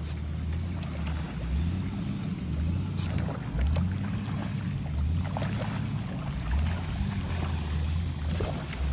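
A motor running steadily with a low, wavering drone.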